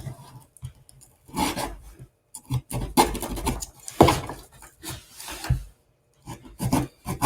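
A cardboard box and its packaging being handled and opened by hand: irregular scraping and rubbing in short bursts, with a few dull knocks.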